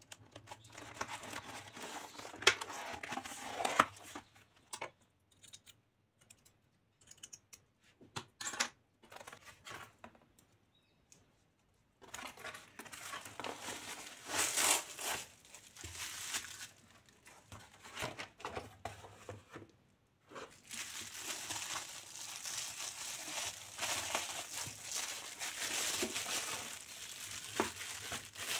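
A cardboard mailer box being opened by hand, in bursts with short pauses: packing tape picked at and torn, and cardboard flaps rustling and creasing. Dense plastic bubble wrap crinkling fills the last stretch as the book is unwrapped.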